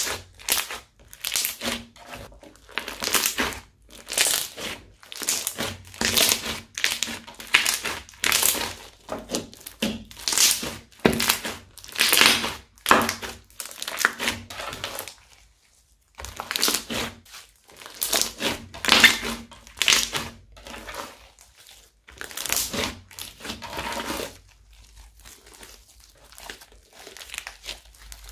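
Crunchy slime kneaded and squeezed by hand, crackling and crunching with each press, about once a second. There is a short pause midway, and the presses are softer near the end.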